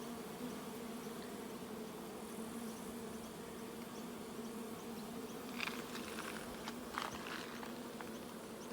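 Honeybees buzzing steadily around a Flow Hive, a many-bee drone at one held pitch. A few faint short clicks come about halfway through.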